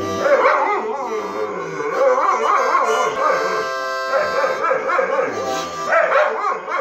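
Harmonica playing held chords while a dog howls and whines along in a wavering pitch.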